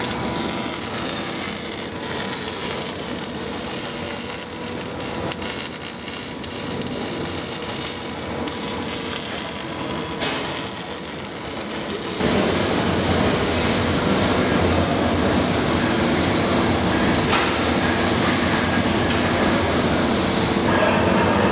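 Wire-feed (MIG/MAG) welding arc crackling and spitting steadily as spatter flies. About twelve seconds in, a louder, steadier rushing noise takes over.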